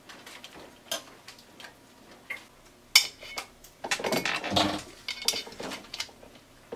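Aluminium parts and tools clinking and clattering as they are handled on a workbench: scattered sharp clicks, one loud clink about three seconds in, then a busier clatter lasting about a second.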